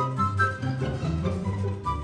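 Background music: short, bouncy pitched notes over a steady beat.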